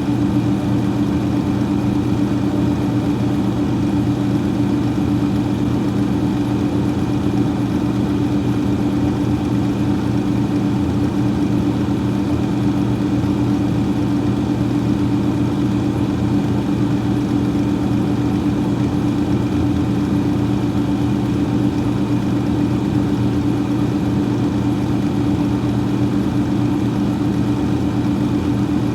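Freezer fan running steadily: a constant hum with several steady low tones and a faint higher whine over an even rush of moving air.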